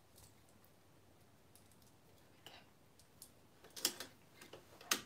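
Small clicks and taps of a bobbin being fitted into a sewing machine's bobbin area under the needle plate. Quiet at first, with a few faint clicks after about two and a half seconds, then a quick run of louder clicks near the end.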